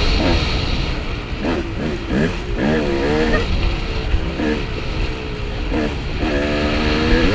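Dirt bike engine being ridden hard, its revs rising and falling several times as the throttle is worked, then held high near the end, over a steady low rumble.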